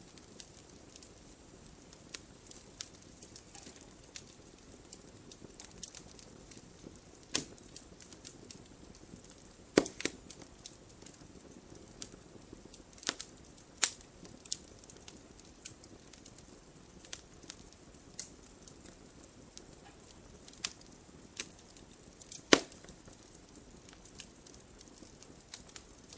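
Wood fire crackling in a fireplace: irregular sharp pops and snaps over a soft steady hiss, with two louder pops, one about ten seconds in and one a few seconds before the end.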